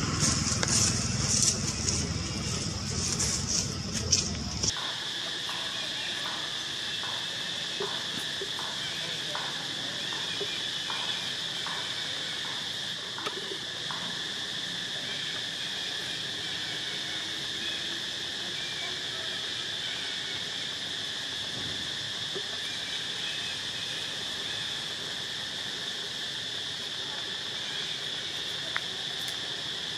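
Insects droning steadily in a high, even note, with a faint chirp repeating a little more than once a second for several seconds. For the first few seconds a louder low rumble covers it, then cuts off abruptly about five seconds in.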